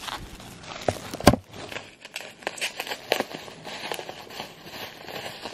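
Plastic bubble wrap being unwrapped by hand from a small bottle: irregular crinkling and crackling, with a sharper knock about a second in.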